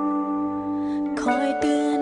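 Background music: held notes that give way to new, wavering notes a little over a second in.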